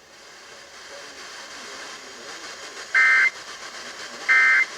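Two short, loud, screechy data bursts of an Emergency Alert System (SAME) signal, the end-of-message code, about three seconds in and again just over a second later, over a faint hiss that grows louder.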